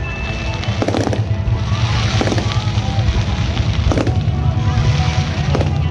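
Fireworks going off, four sharp bangs about a second and a half to two seconds apart, over a steady low rumble and music.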